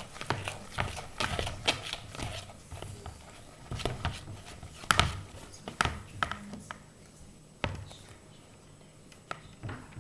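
Sticky homemade glue slime being kneaded and squeezed by hand, giving irregular wet clicks and smacks.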